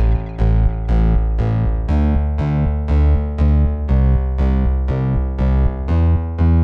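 Background music: keyboard-like notes struck in a steady rhythm over a deep bass line.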